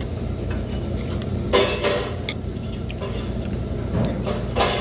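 Fork and soup spoon clinking and scraping against a bowl several times, the loudest strokes about a second and a half in and near the end, over a steady low background hum.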